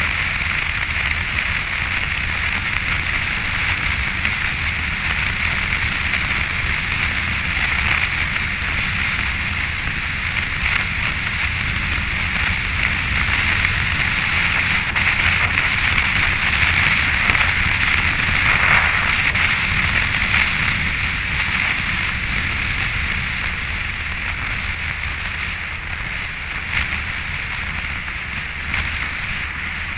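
Yamaha FJR1300 motorcycle riding along at road speed, heard as a steady rush of wind and road noise on an onboard camera, with a low rumble beneath. The rush swells a little around the middle and eases toward the end.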